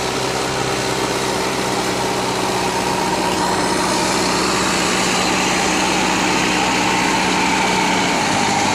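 Diesel engine of a Mahindra EarthMaster SX90 backhoe loader running steadily, its note dropping near the end.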